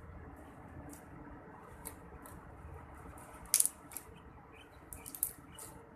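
A few sharp clicks of small objects being handled, the loudest one about three and a half seconds in and a quick cluster of lighter clicks around five seconds in, over a low steady background.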